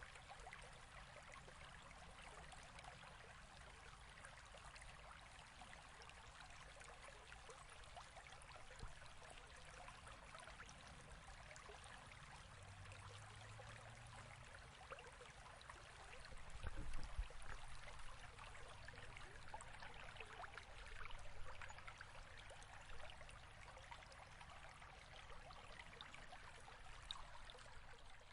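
Faint, steady flowing water, a small stream or trickle splashing evenly. A low thump comes about two-thirds of the way through.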